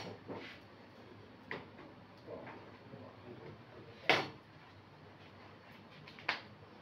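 Kitchen clatter: a few scattered light knocks of utensils being handled at the stove and counter, the sharpest about four seconds in.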